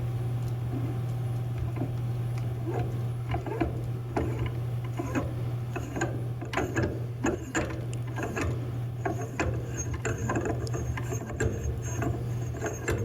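Irregular metallic clicks and scrapes of a pipe wrench being worked to unscrew a threaded SMR module from a cone penetrometer, with short high squeaks in the second half, over a steady low hum.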